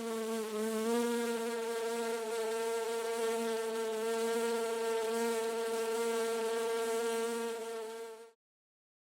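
A bee buzzing steadily in flight, its pitch wavering slightly about half a second in. The buzz dips in level and then cuts off near the end.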